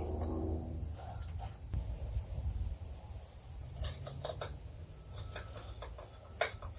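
Light clicks and taps of screws and small metal parts being handled and fitted back onto a string trimmer, mostly in the second half, over a steady high-pitched hiss and a low hum.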